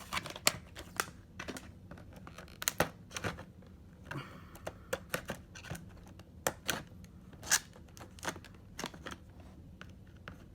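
Scissors cutting through a stiff plastic clamshell package: a string of sharp, irregular snips and clicks, with a brief scraping rustle about four seconds in.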